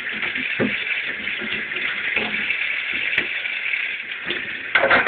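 Kitchen tap running steadily into a stainless steel sink, with a few soft knocks and a brief louder surge of water near the end.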